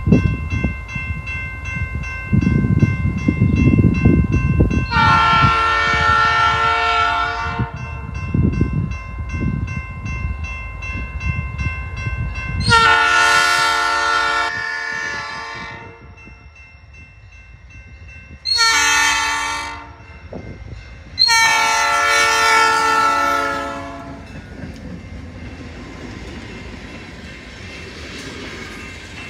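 EMD SD40-2 diesel locomotive's multi-chime horn sounding the grade-crossing signal: two long blasts, a short one and a final long one, over the steady ringing of the crossing bell. Near the end the two SD40-2 locomotives roll past with a steady rumble of engines and wheels on the rails.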